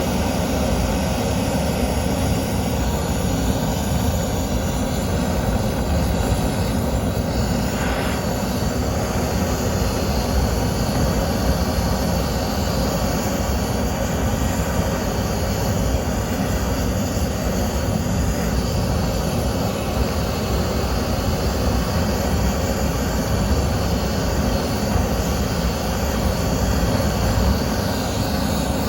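Steady, continuous rushing noise of a hot flame burning nuts, heaviest in the low end and unbroken throughout.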